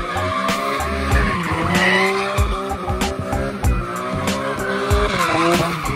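BMW E46 M3's straight-six engine revving up and down as the car spins donuts, with tyres skidding and squealing on the pavement. Music with a steady beat plays over it.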